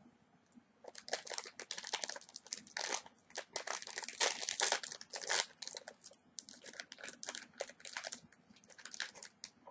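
Plastic snack-cake wrapper crinkling as it is handled and pulled open by hand, in dense irregular crackles that start about a second in and are loudest around the middle.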